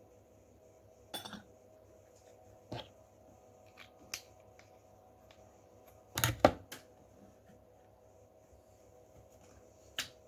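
Scattered sharp clicks and knocks of kitchen utensils and containers being handled, over a steady hum. The loudest is a quick cluster of knocks a little past the middle.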